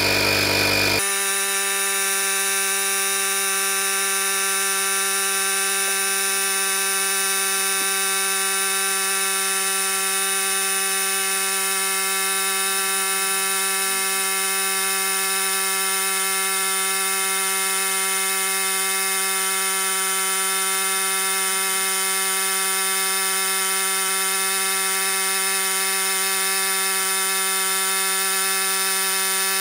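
Vaclife VL738 portable tire inflator's compressor running steadily as it inflates a car tire. The sound is played back about four times fast, so from about a second in the compressor's drone becomes an unchanging buzz.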